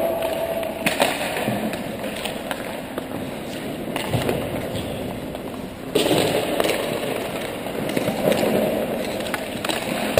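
Ice hockey warm-up on the rink: skate blades scraping the ice, with sharp knocks of pucks and sticks against the ice and boards.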